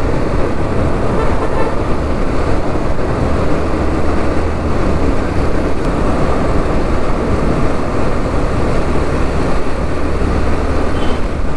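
Motorcycle on the move through a road tunnel: a steady low engine hum under continuous road and traffic noise.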